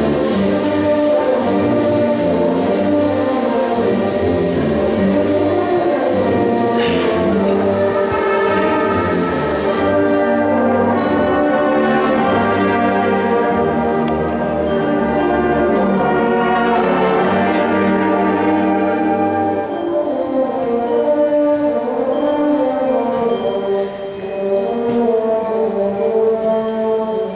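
A school concert band playing a full wind-band passage: woodwinds and brass with a bright percussion wash through the first ten seconds. About two-thirds through, the low brass drops out, leaving lighter, quieter woodwind and horn lines.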